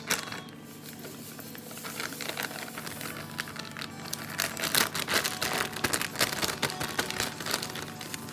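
Paper sachet of cake mix crinkling and rustling as it is tipped and shaken over a plastic mixing bowl. The crackle grows denser and louder through the middle. There is a single sharp click right at the start.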